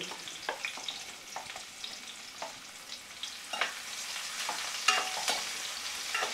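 Chopped shallots, green chilli and curry leaves sizzling in hot oil in a non-stick kadai, with a spatula scraping and clicking against the pan as they are stirred. The sizzle is steady and the clicks are scattered, a few of them sharper in the second half.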